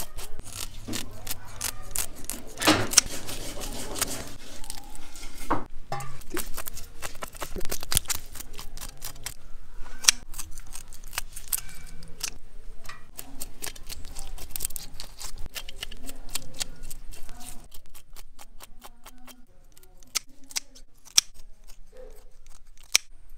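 Kitchen scissors snipping and scraping on small fish being scaled and cut: a long run of quick sharp clicks and rasps that thins out near the end.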